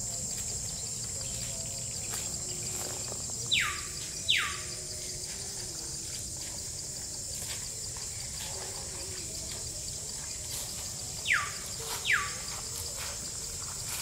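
Insects droning steadily at a high pitch, while a bird calls twice with a pair of sharp, downward-sliding whistles each time.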